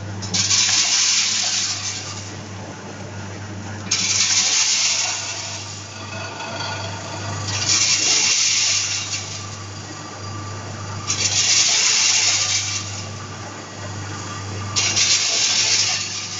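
Vertical form-fill-seal peanut bagging machine running its packing cycle: a rushing hiss of about a second and a half comes five times, evenly spaced about every three and a half to four seconds, over a steady low machine hum.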